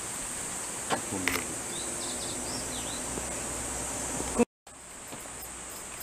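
A steady, high-pitched insect chorus, with a few short chirping calls over it and a couple of light clicks about a second in. The sound drops out for a moment a little after four seconds, then the insect chorus carries on.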